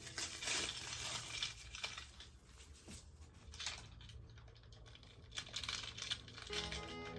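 Wrapping crinkling and rustling as a small toy train car is unwrapped by hand, with scattered light clicks. Background music comes back near the end.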